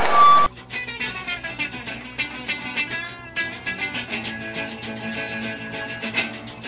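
Live crowd noise cut off abruptly about half a second in, followed by background guitar music with quick plucked notes.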